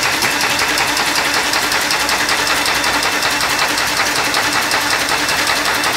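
Industrial roller-and-conveyor machine running steadily: a fast, even mechanical clatter over a continuous hum.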